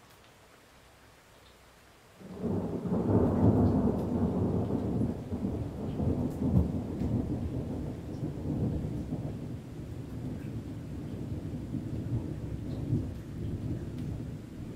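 Deep thunder rumbling in a thunderstorm: quiet at first, then about two seconds in a sudden low rumble starts, swells and rolls on, slowly easing but still going at the end.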